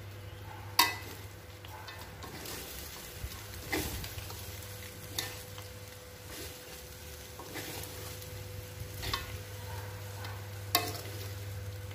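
Metal spatula stirring and scraping a thick, sticky mix of fried anchovies, peanuts and chili sambal around an aluminium wok, over a low sizzle. A few sharp clinks come from the spatula striking the wok, the loudest about a second in.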